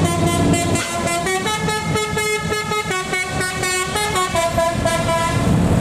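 A bus's Basuri telolet horn, a multi-tone air horn, playing a quick tune of many short notes that step up and down, over low engine rumble.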